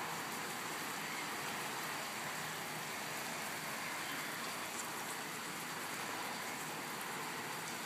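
Steady rain falling, a little heavy, an even hiss with no let-up.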